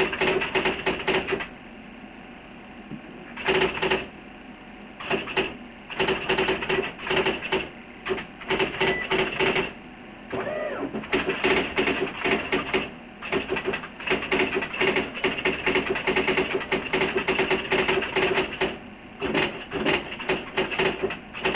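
Electric correctable typewriter typing: fast runs of key strikes clacking against the platen, broken by brief pauses about two seconds in, around four seconds in and around ten seconds in.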